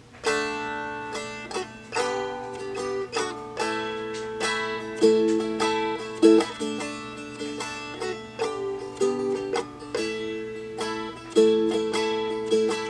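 Seagull Merlin, a four-string strummed dulcimer, playing a chordal tune: repeated strums ringing over steady drone strings.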